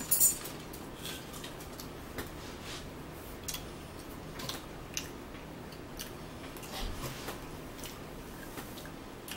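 Chewing and mouth sounds of people eating close to the microphone, with scattered short, crisp clicks and crackles of food being crunched.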